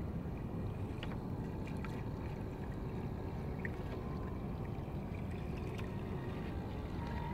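Small waves lapping and trickling at the water's edge, over a steady low rumble of wind on the microphone.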